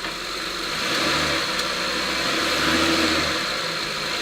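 2008 Honda Pilot's 3.5-litre V6 running steadily in drive with the brakes held, a little louder from about a second in.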